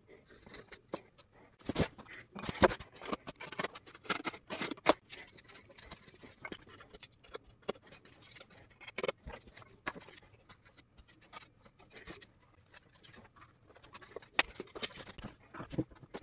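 Hands handling rigid foam mold pieces and plastic sheet on a workbench: irregular taps, scrapes and rustles, busiest a couple of seconds in.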